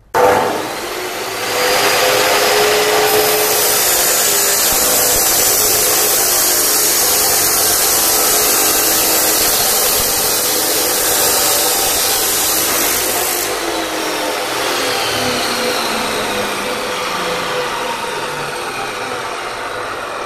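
Abrasive chop saw cutting metal: the motor starts with a jolt and spins the disc up, and about a second and a half in the disc bites into the metal with a loud, harsh hiss. The cut runs steadily for about twelve seconds, then the hiss drops away and the motor winds down with a falling pitch.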